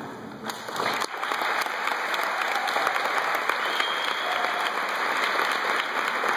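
Audience applauding. A few claps start about half a second in, and within a second they fill into steady, dense clapping.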